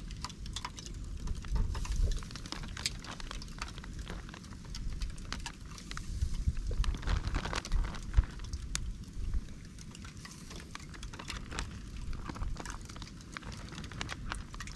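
Marinated chicken sizzling over a charcoal grill, with irregular sharp pops and crackles over a low rumble.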